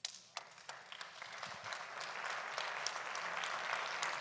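Audience applause: a few scattered claps at first, building within about two seconds into steady clapping from many hands.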